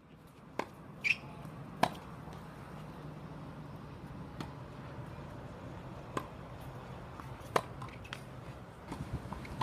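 Tennis balls being struck on hard Plexicushion courts: sharp single pocks at irregular intervals, with a brief high squeak about a second in, over a steady low hum.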